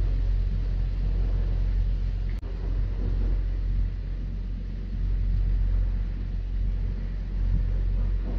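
Steady low rumble of a running vehicle engine, with a brief click about two and a half seconds in.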